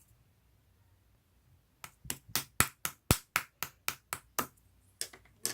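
A quick run of about a dozen sharp knocks or taps, roughly four a second, then two more near the end.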